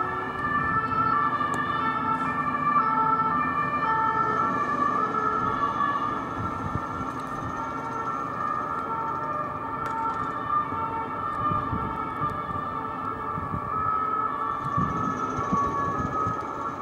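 Two French police cars' two-tone sirens sounding together, each switching back and forth between a high and a low note about every half second, their patterns overlapping.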